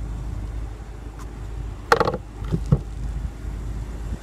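A sharp click on the car's bodywork about two seconds in, followed by two softer knocks, over a steady low rumble.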